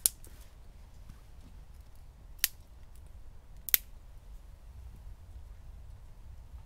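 Small wood fire burning in a camping stove, giving three sharp pops: one at the start, one about two and a half seconds in and one near four seconds, over a low steady rumble.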